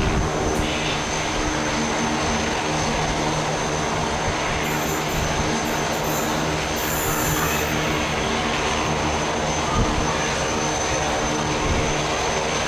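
Twin CFM56-7B jet engines of a Boeing 737-800 on approach to land: a steady jet drone with a low multi-tone hum and a thin high whine running through it.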